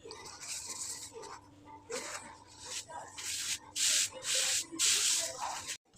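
Rubbing and rustling strokes from working thin baklava yufka pastry sheets, with a run of about five short, loud strokes in the second half.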